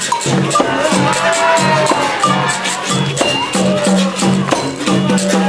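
Live capoeira music: a berimbau with the rattle of its caxixi shaker keeping a steady repeating rhythm, with voices singing over it.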